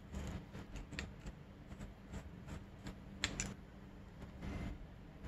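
Scattered light clicks and knocks of a Keihin FCR dirt-bike carburetor being handled and turned over by hand, with a sharper pair of clicks about three seconds in.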